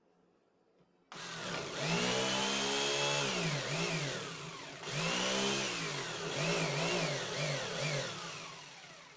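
Electric jigsaw starting about a second in and cutting into a wooden board, its motor pitch repeatedly dipping and recovering as the blade loads in the cut. It eases off briefly near the middle and fades near the end.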